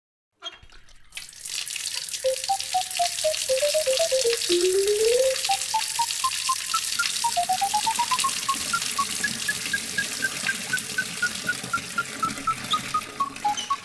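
Water running hard from a tap, as into a filling basin, starting about a second in. Over it, a tune of short single notes steps down and then climbs and falls again in scale-like runs, with one short rising slide a few seconds in.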